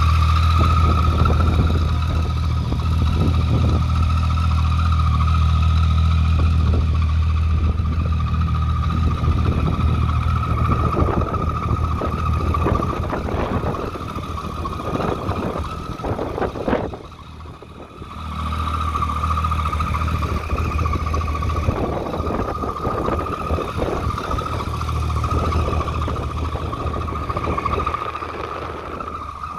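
Triumph Street Triple 675's inline three-cylinder engine idling steadily. The sound dips briefly just past halfway.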